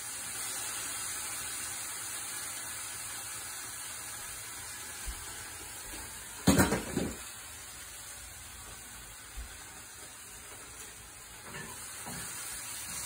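Daylily pods frying in olive oil in a skillet, a steady sizzle. About six and a half seconds in there is a loud clatter, and near the end a few light knocks as a spatula stirs the pan.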